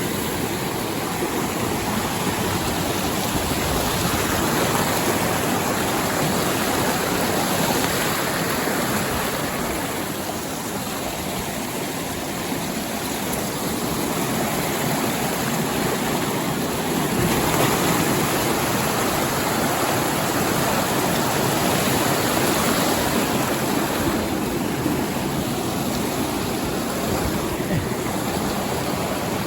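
Mountain stream rushing steadily, a constant wash of running water that swells and eases a little.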